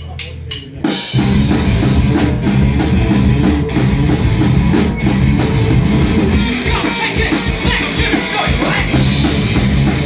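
Live rock band with distorted guitars and drum kit playing a heavy, punk-edged song at full volume. A few sharp hits lead in, and the full band comes in about a second in.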